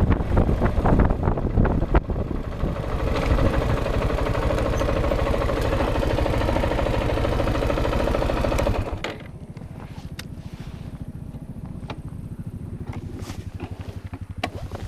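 Single-cylinder dual-sport motorcycle under way with engine and wind noise. About nine seconds in, the engine drops suddenly to a quieter, steady idle as the bike stops.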